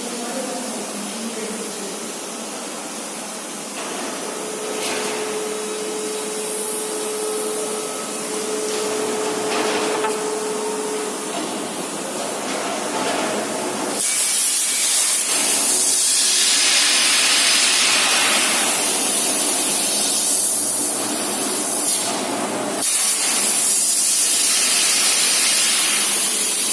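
CNC plasma cutter: a softer hiss with a steady hum for the first half, then from about halfway in the loud, high hiss of the plasma torch cutting, which stops for a moment near the end and starts again.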